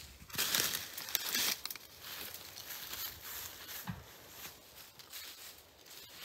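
Crunching and rustling in dry leaves and brush, loudest in the first two seconds, then softer rustling with one short low sound near the four-second mark.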